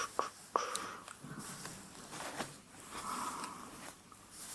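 Faint close-microphone rustling of hair being handled, with a few small clicks near the start and a soft swish about three seconds in.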